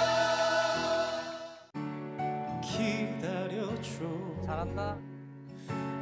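Male vocal group singing a slow song in harmony with accompaniment. It cuts off abruptly under two seconds in, and a solo male voice follows, singing with vibrato over soft accompaniment.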